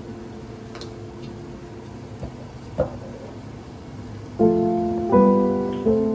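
Background piano music: soft held chords that die away, then a louder new chord about four and a half seconds in, changing twice more.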